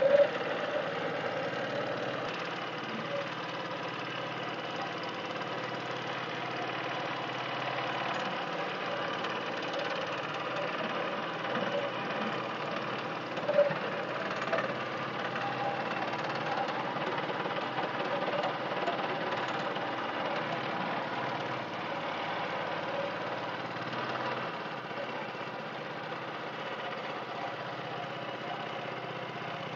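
Motorised canoe's engine running steadily while under way, with a brief thump at the start and another about halfway through.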